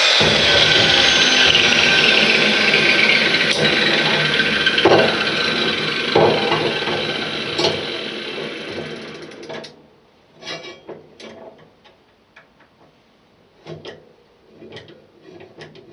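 Handheld power tool stripping paint off a metal mower pulley bracket, a dense grinding noise whose pitch sags under load early on, fading out about nine to ten seconds in. After that come scattered light knocks and clicks of the tool and bracket being handled.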